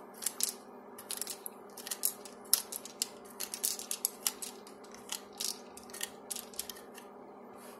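Cartridges being thumbed one at a time out of an FNP-45 pistol's 15-round steel magazine. Each .45 ACP round gives a sharp metallic click as it snaps free, with clinks of brass against the rounds already held in the hand, making an irregular run of light clicks.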